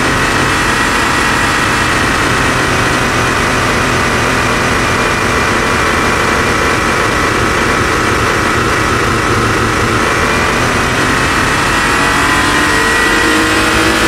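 Synthesized sports-car engine and exhaust from Krotos Igniter's Porsche Carrera preset, running steadily with its pitch climbing slightly near the end.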